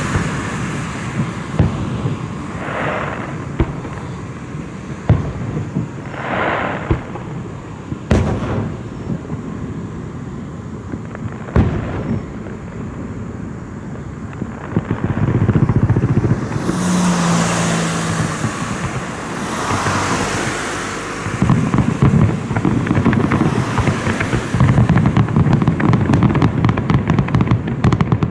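Fireworks display: a series of sharp bangs from bursting shells, then a long stretch of dense crackling that grows thicker near the end.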